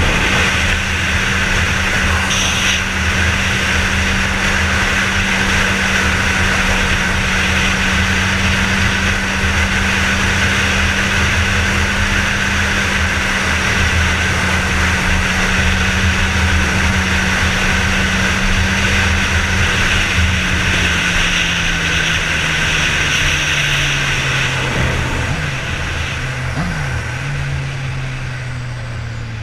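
Suzuki GSX-R1000's inline-four engine holding a steady note at cruising speed, with a rush of wind and road noise. Over the last several seconds the engine note falls and the sound gets quieter as the bike slows.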